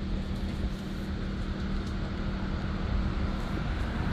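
Steady mechanical hum with a constant low rumbling noise beneath it.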